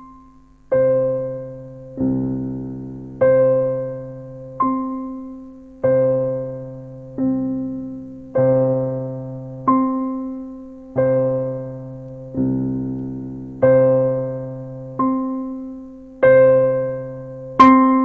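Kurzweil KA90 digital piano playing a slow passage of chords. A new chord is struck about every 1.3 seconds and left to ring and fade over a low note that keeps sounding.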